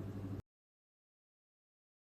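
A low, steady background hum that cuts off abruptly less than half a second in, leaving dead digital silence.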